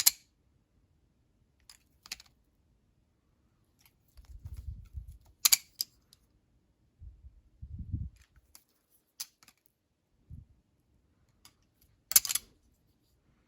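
Spasmfingers Dragon plastic balisong trainer being flipped: a few separate sharp clicks as its handles knock against the blade, with soft low handling thumps in between.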